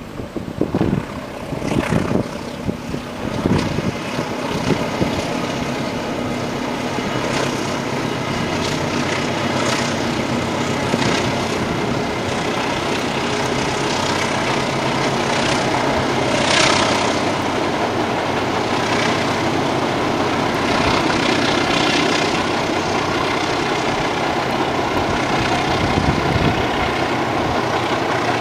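Diesel locomotive and its passenger carriages crossing a steel trestle railway bridge: a steady, loud rumble of the engine and of the wheels on the rails. A few gusts of wind hit the microphone in the first few seconds.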